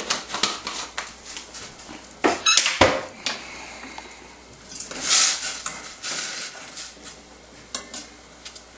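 Kitchen utensils and a cooking pot being handled: a string of clinks and knocks, with a brief rush of noise about five seconds in.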